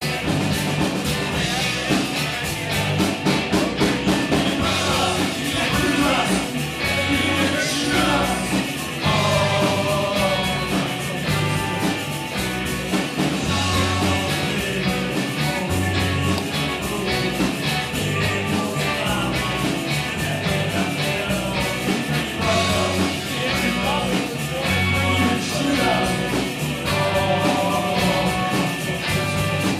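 Live rock band playing amplified through a club PA: electric guitars, bass, drums and keyboard with a lead vocal over a steady beat.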